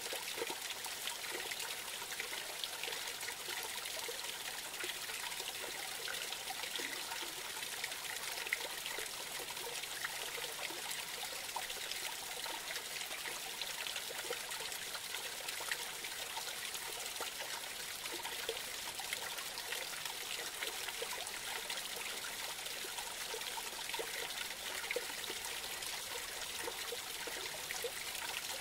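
Small forest creek trickling and splashing over a little cascade, a steady babble of running water.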